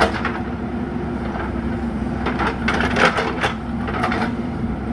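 JCB 3DX Super backhoe loader's diesel engine running steadily, with a sharp knock right at the start and a cluster of knocks and clatter about halfway through.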